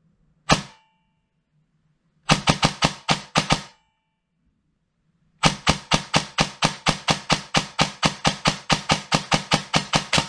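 SR25 airsoft electric gun's gearbox cycling on its stock gears: one shot, then a short burst of about eight, then a long steady burst of about five shots a second, each a sharp metallic crack of the piston.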